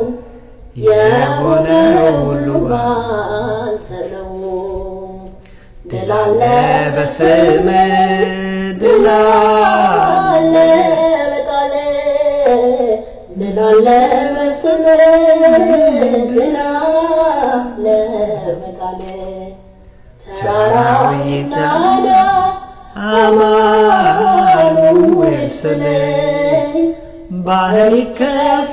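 A priest singing a religious chant alone, in long held, melismatic phrases whose pitch bends up and down, with brief pauses for breath between phrases.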